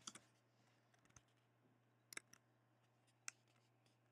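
Near silence broken by a handful of faint, widely spaced computer keyboard keystrokes, about one a second.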